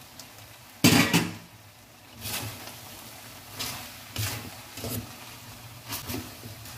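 Metal spatulas scraping and clanking against a metal wok as stir-fried noodles are tossed: a run of short strokes at irregular intervals, the loudest about a second in.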